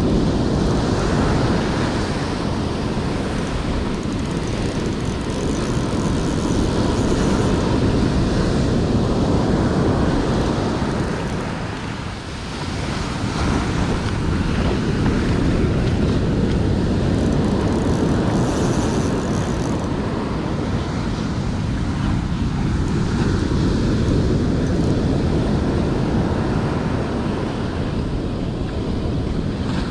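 Surf breaking and washing up a sandy beach, with wind rumbling on the microphone. The noise is steady and loud, easing briefly about twelve seconds in.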